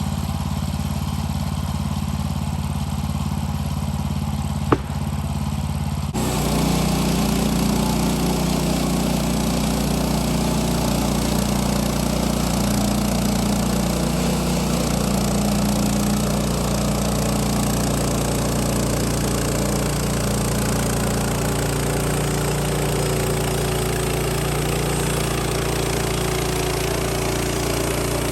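Sawmill's engine running steadily, with one sharp click about five seconds in. About six seconds in the sound steps up, louder and noisier, and stays that way as the mill works.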